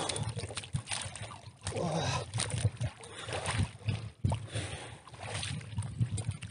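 Icy water splashing and sloshing in an ice hole as a bather sits and moves in it, in irregular bursts.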